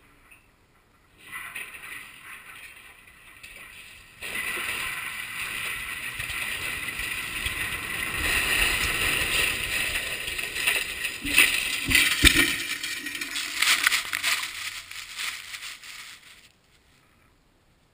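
Steel lattice radio tower collapsing in a controlled demolition: a rushing, rattling noise builds as the tower falls, with heavy crashes about eleven to twelve seconds in and again near fourteen as the steel hits the ground. The sound cuts off abruptly a little over a second before the end.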